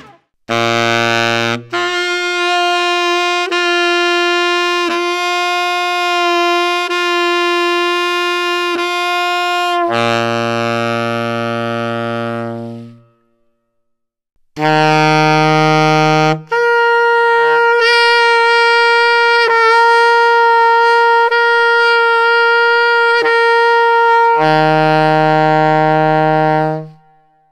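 Tenor saxophone, then alto saxophone, each playing an overtone exercise. Each starts on low C, rises to the G an octave and a fifth above sounded as a harmonic with the low C fingering, then alternates that harmonic with the normal G fingering at the same pitch, with a small break at each switch, and ends back on low C.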